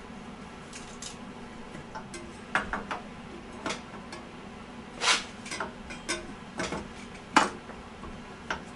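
Irregular metallic clinks and knocks, about a dozen, of bike parts and hardware being handled, over a low steady hum.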